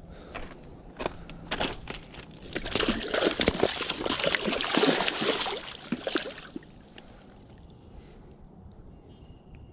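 Hooked northern pike thrashing in shallow water at the shoreline, splashing hard for about four seconds in the middle, then settling.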